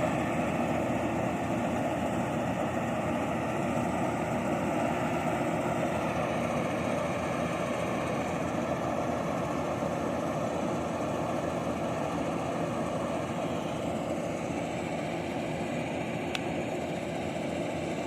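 INARI rice combine harvester running steadily, a continuous engine and machinery noise.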